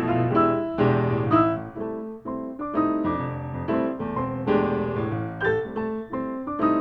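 Background music led by piano, a run of struck notes and chords at a steady moderate pace.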